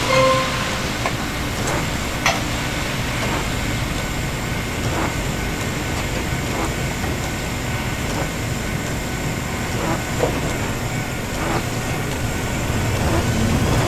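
Fukui Railway 735-type tram standing at the platform, a steady hum with scattered light clicks and knocks. Near the end it starts to pull away and its motor whine begins to rise in pitch.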